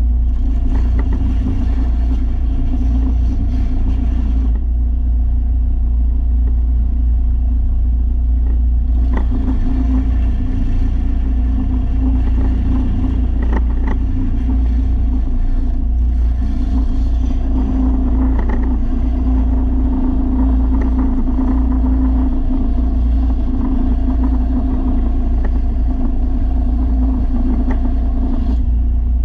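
Belt sander running steadily with a low hum, and a steel mower blade being ground against the sanding belt in three long spells: the first stops about four seconds in, the next starts around nine seconds in, and after a brief break the last runs until near the end.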